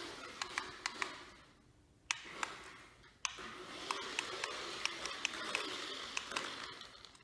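Toy RC car's small electric motor and gears whirring in two runs: it dies away, stops for about a second, then starts again suddenly and fades out near the end. Sharp clicks sound throughout.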